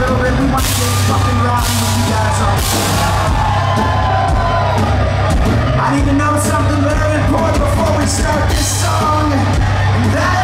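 Live rock band playing loudly: electric guitar, bass guitar and drum kit with repeated cymbal crashes, under a sung vocal, heard from within the crowd.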